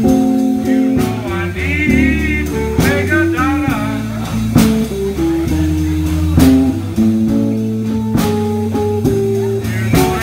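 Live blues band playing a slow blues on electric guitars and drum kit, with wavering, bent lead notes over a steady bass line and drum strokes about every two seconds.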